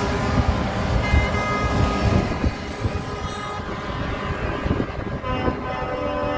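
Convoy of heavy trucks driving past, their diesel engines rumbling. Truck horns sound over it, with another horn starting about five seconds in.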